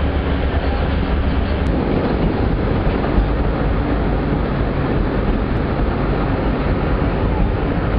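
Steady low rumble of a moving train, heard from on board as the car runs along the track.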